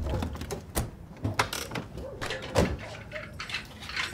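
A door or gate being handled: a series of sharp clicks and knocks, the loudest about two and a half seconds in.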